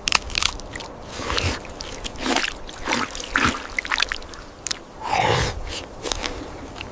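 Water dripping and trickling from wet hands into a shallow pool, with small sloshes and splashes, and a heavy breath about five seconds in.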